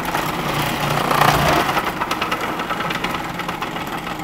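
Electric food processor running with its shredding disc, grating blocks of Emmentaler cheese pushed down the feed tube: a steady motor hum with the rasp of the cheese being shredded.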